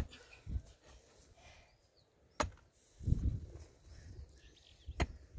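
Three sharp knocks, about two and a half seconds apart, with dull thumps between them, from hands-on building work.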